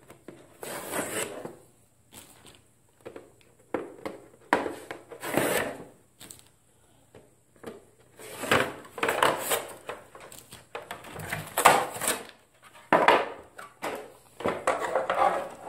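Thin plastic armor pieces being handled and pulled apart on a table: irregular scrapes, rustles and knocks.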